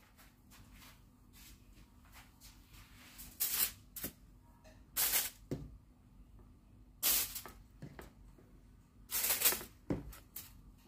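Aluminium foil crinkling in four short rustles, about two seconds apart, as eggplant slices are laid down on a foil-lined tray.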